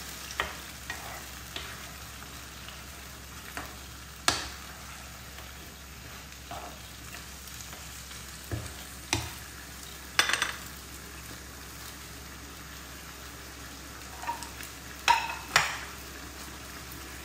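Mutton in a yogurt and tomato masala frying with a steady low sizzle in a nonstick frying pan, stirred with a spatula that scrapes and taps against the pan now and then. The sharpest taps come about four seconds in, around nine to ten seconds, and twice near fifteen seconds.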